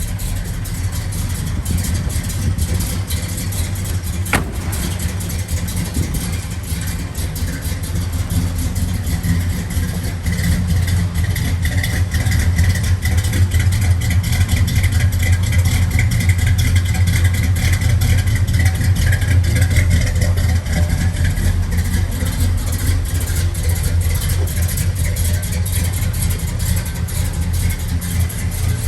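A 350 cubic-inch small-block Chevrolet V8 in a 1967 Pontiac LeMans runs steadily. It grows louder for about ten seconds in the middle, then eases back. A single sharp click sounds about four seconds in.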